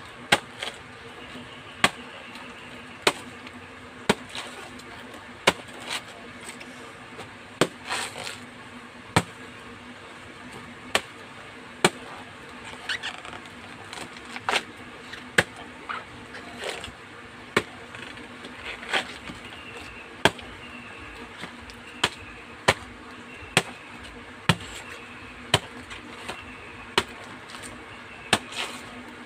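Machete chopping banana trunk into small pieces: sharp chops at roughly one a second, a few coming in quick pairs. A faint steady hum runs underneath.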